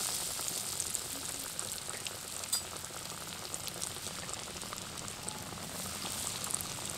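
Breadcrumb-coated chicken cutlets frying in hot oil in a kadai: a steady sizzle with many small crackles and pops.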